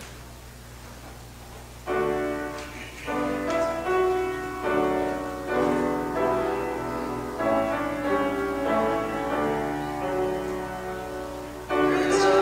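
Grand piano playing the introduction to a hymn, starting about two seconds in with chords and a melody line. Near the end it grows louder as the congregation starts singing the hymn.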